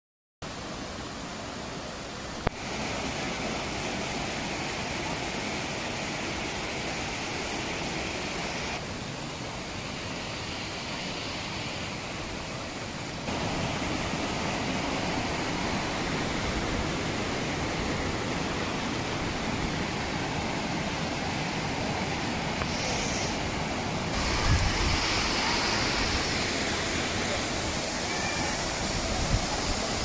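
Rushing water of a stream pouring over rocks and a waterfall: a steady rush that changes level abruptly a few times, at about 2.5, 9, 13 and 24 seconds in, with a few low thumps near the end.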